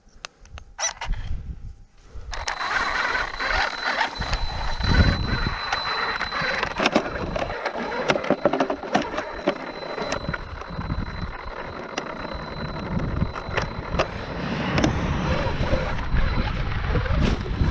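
Traxxas X-Maxx RC truck being handled: clicks and knocks of its battery connections and body being fitted, and about two seconds in a steady hiss with a thin high whine starts suddenly as its electronics are switched on.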